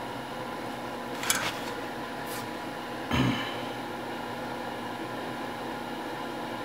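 A steady machine-like hum with a hiss. A sharp click comes about a second in, a faint swish just after two seconds, and a dull thump a little after three seconds.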